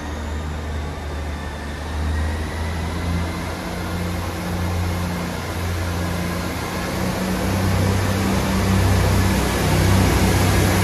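ScotRail Class 158 diesel multiple unit's underfloor diesel engines running, a low steady drone under a broad hiss that grows gradually louder.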